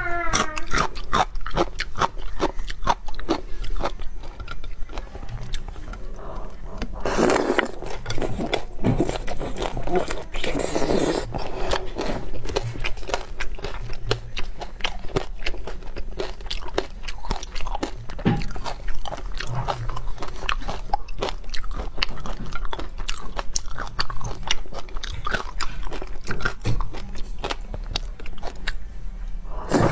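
Close-miked chewing and crunching of food: a dense run of small wet crunches and mouth clicks, with louder bursts about seven and eleven seconds in.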